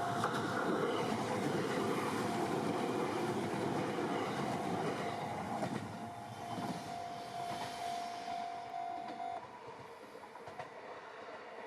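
A Taketoyo Line diesel train running past on the tracks, loud for the first half and then fading away as it moves off.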